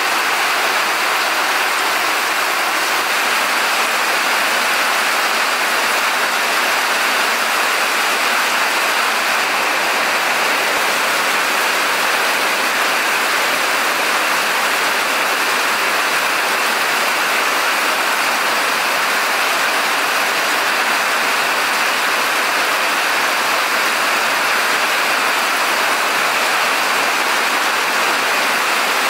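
Rain falling steadily: a loud, even hiss that does not let up.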